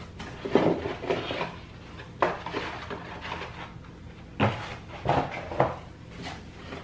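Cardboard shipping box and molded pulp packing insert being handled: a series of short rustling scrapes and knocks as the insert is pulled out and tossed aside and hands reach in among the packed items.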